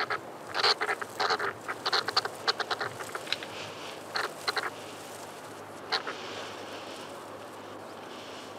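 Golden-mantled ground squirrels calling as they chase and fight: runs of short, quick calls through the first four to five seconds, and one more call about six seconds in. This is the scolding of a quarrel over the borders of their burrow territories.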